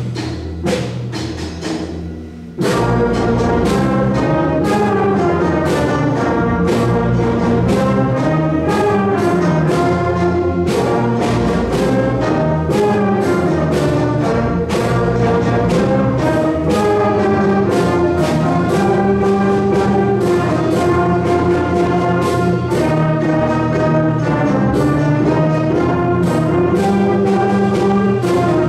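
Middle school concert band playing: a quieter opening of drum strikes and low notes, then the full band with brass comes in loudly about two and a half seconds in and plays on steadily.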